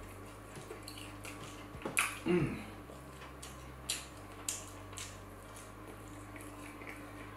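Mouth eating sounds while eating suya chicken wings: chewing and lip-smacking, a scatter of short wet clicks, with a brief hummed "mm" about two seconds in.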